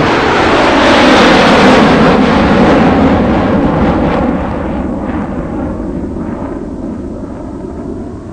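Cinematic intro sound effect: a loud, noisy rumble that swells over the first couple of seconds, then slowly dies away.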